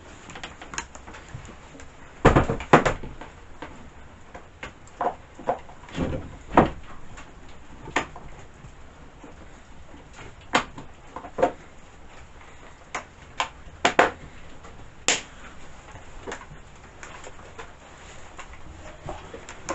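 Irregular clicks, taps and knocks of a chainsaw's plastic parts and air-filter cover being handled and snapped, with a close pair of louder knocks about two seconds in.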